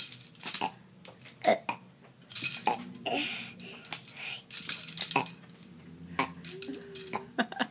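Repeated sharp clinks and clatters of hard objects knocking together, irregular and bunched into little flurries. A short low hum comes about six and a half seconds in.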